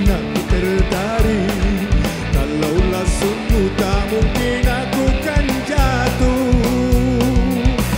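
Live band playing a pop-rock song, with drums keeping a steady beat under electric guitar.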